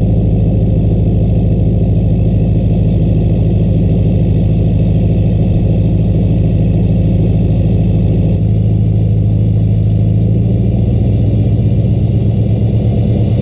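LBZ Duramax 6.6-litre V8 turbo-diesel running at a steady high idle just after a cold start in sub-zero cold, heard at the exhaust, with a faint turbocharger whistle above the engine note.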